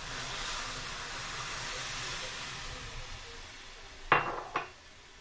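Milk poured into a hot aluminium kadai of grated raw papaya frying in ghee, sizzling and hissing, the sizzle dying away over about three seconds. Two sharp knocks follow about four seconds in.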